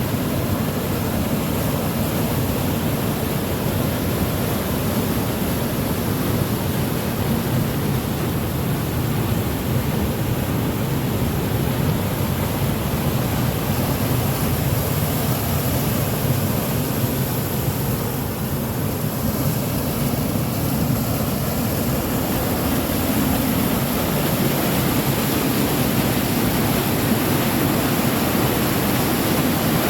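Waterfall rushing: a steady, loud roar of falling water, dipping briefly about two-thirds of the way through and coming back slightly louder.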